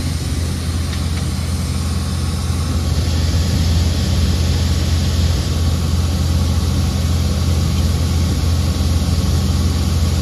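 Heavy diesel engine of a water-well drilling rig running steadily at a constant speed, with a steady hiss over it.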